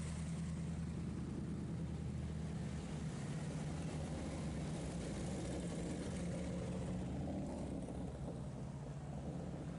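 Classic cars and touring motorcycles rolling past at parade speed, a steady low engine rumble from several engines at once.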